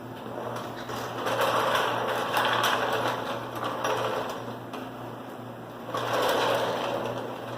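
A rapid mechanical rattle in two bursts, a long one of about three seconds and then a shorter one of about a second.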